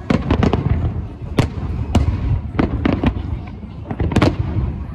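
Aerial fireworks shells bursting: a dozen or so sharp bangs in irregular quick succession over a steady low rumble.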